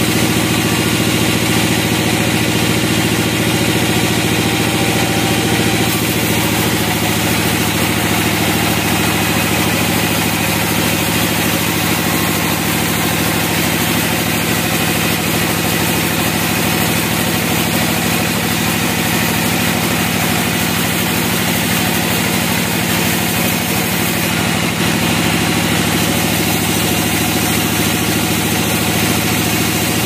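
Band sawmill running steadily, its drive motor humming evenly while the blade cuts lengthwise through a pine log.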